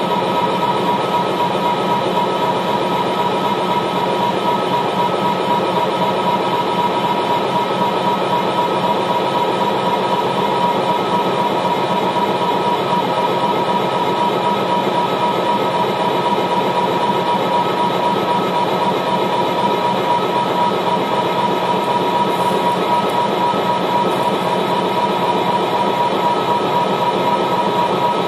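Live minimalist electronic music built from phase-shifted short loops: a loud, dense, unchanging drone with a fast fluttering pulse and a steady high tone held on top.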